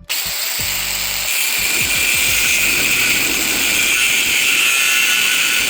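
Handheld power tool, such as a grinder or drill with an abrasive attachment, running steadily with a high whine as it grinds the surface of a cast-iron pot lid ahead of seasoning. The sound starts abruptly.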